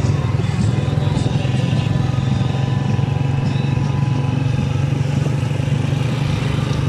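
A vehicle's engine running steadily while riding along, with a constant low drone and the rush of wind and road noise.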